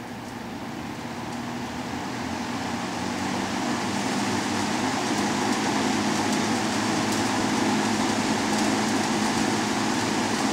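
Vintage Dominion 20-inch box fan with a Fasco motor running on high speed: a steady rush of air with a low motor hum, growing louder over the first few seconds as the heavy blades come up to speed, then holding steady.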